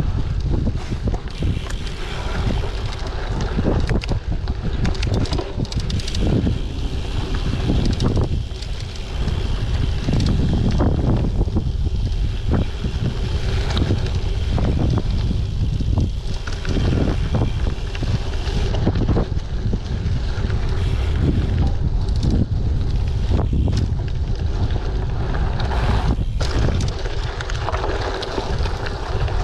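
Wind buffeting a GoPro action camera's microphone while a Giant TCX gravel bike rolls along a dirt trail on its 38 mm WTB Riddler tyres, with frequent knocks and rattles from the bike over bumps.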